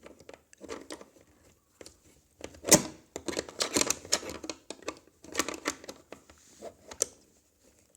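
Clicks and rattles of toy farm pieces being handled while a broken-off part is fitted back on, with one sharp click about a third of the way in.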